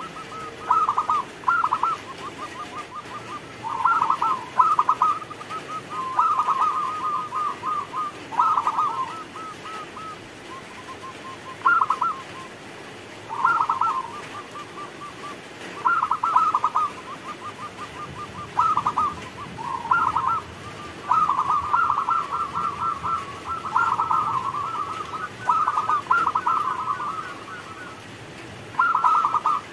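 Zebra dove (perkutut) cooing over and over: short phrases of rapid, stuttering coos come every second or two, with softer quick runs of notes between them.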